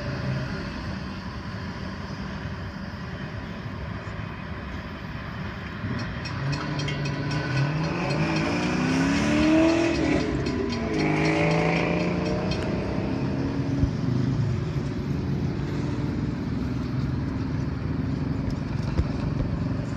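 Cars driving off across the railroad crossing after the train: engines accelerating, one rising in pitch for a few seconds past the middle, then dropping away. A couple of short knocks come later.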